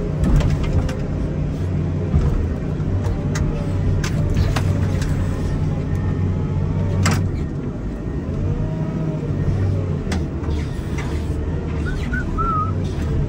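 Komatsu wheel loader's diesel engine running steadily under snow-pushing work, with scattered knocks and one sharp clank about seven seconds in. A short warbling high chirp comes near the end.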